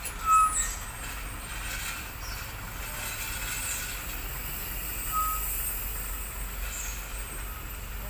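Diesel trucks passing on the road: a steady low engine rumble with tyre and road noise, with a short high beep just after the start and another about five seconds in.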